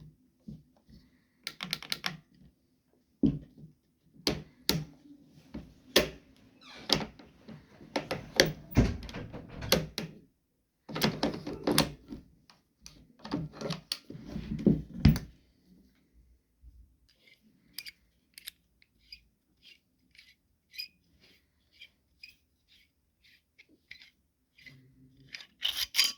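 Metal clicks, knocks and clattering from an old Brno or Mauser rifle being handled and opened up, then a run of light, evenly spaced ticks about twice a second, and one louder clack near the end.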